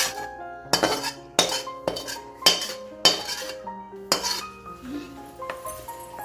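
Metal ladle knocking and scraping against a metal kadhai while a mixture is stirred, about six separate clanks, over background music.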